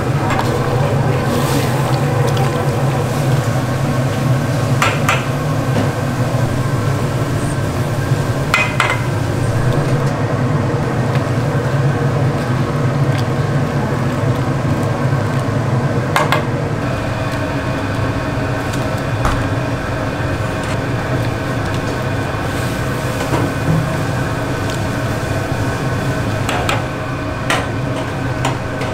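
Steady hum of a busy street-food stall's kitchen, with a few sharp clinks of metal utensils or dishes scattered through it.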